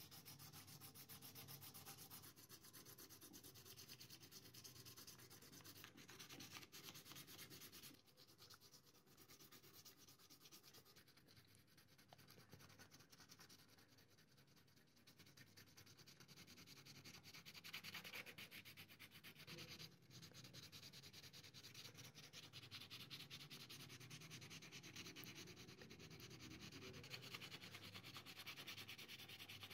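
Faint rubbing and scraping of fingers working a tiny part of a scale model truck, steady with brief louder strokes.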